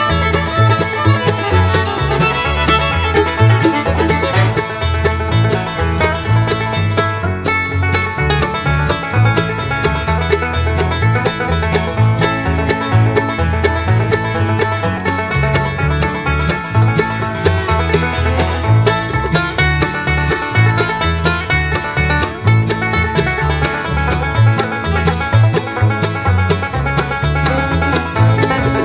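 Background music: an upbeat bluegrass-style tune with banjo, guitar and fiddle over a steady bass line.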